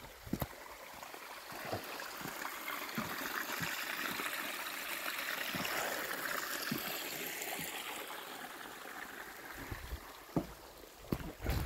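Running water from a small stream or trickle, a steady hiss that grows louder to a peak midway and then fades, as if walked past. A few soft footsteps thud on the path.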